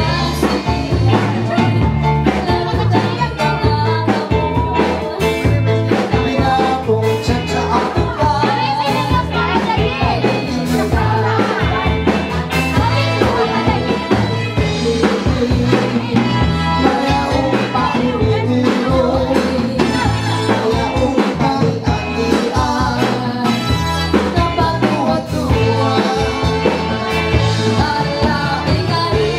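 Live band playing a dance song with a singer, over a steady drum beat and bass.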